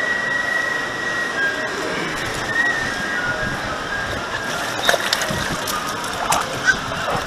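Steady rush of water running down the lanes of a multi-lane mat racer water slide, with a few light knocks in the second half.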